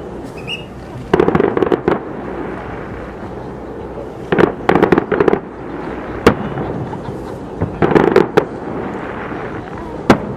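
Fireworks shells bursting overhead in three volleys of rapid bangs and crackles, with a single bang between the second and third.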